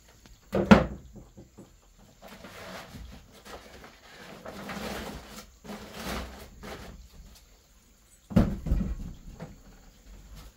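Two heavy knocks on wooden floorboards, one just under a second in and one near the end, with rustling handling of a plastic bag in a woven basket between them.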